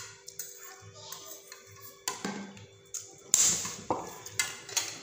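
Sharp taps and clatters from a fork on a ceramic plate and a plastic water bottle being handled, the loudest about three seconds in. Behind them runs quiet background music with a steady low beat.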